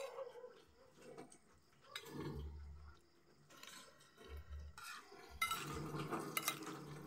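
Spoon and fork clinking and scraping against a glass bowl of cooked vegetables as food is scooped up, getting busier near the end.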